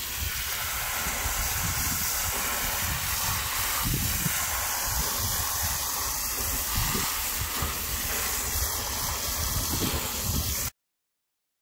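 Garden-hose spray nozzle on a shower setting spraying water onto loose potting soil, a steady hiss of water. It cuts off suddenly near the end.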